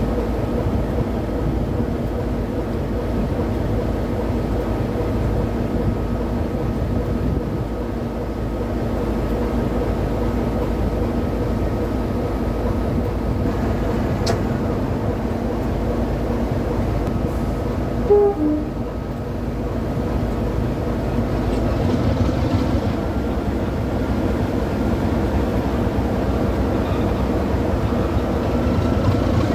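Class 33 diesel locomotive's Sulzer eight-cylinder two-stroke engine idling steadily while standing. A click comes about fourteen seconds in, and a short falling note about eighteen seconds in.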